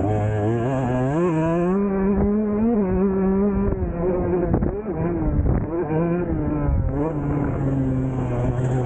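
2023 Husqvarna TC 125's two-stroke single-cylinder engine being ridden hard. Its pitch rises sharply about a second in as the throttle is opened, dips briefly around the middle, then holds steady.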